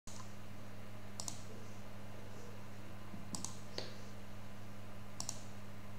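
A computer mouse clicking about four times at spaced intervals, several as quick double clicks, over a steady low hum.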